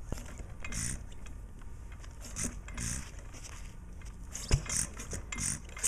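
1924 Fairbanks-Morse Z 2 hp hit-and-miss engine being turned over by hand at its flywheels without firing: uneven mechanical clicking and clatter with short hissing puffs, and a sharp knock about four and a half seconds in and another near the end. The engine is failing to start.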